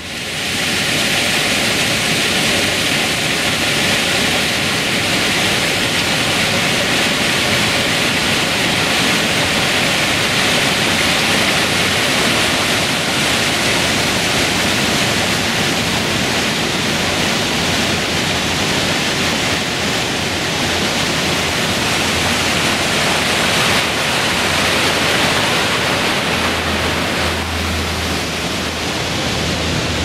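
Steady rushing of the Lehner waterfall's mountain torrent, loud and unbroken. A few low thumps come near the end.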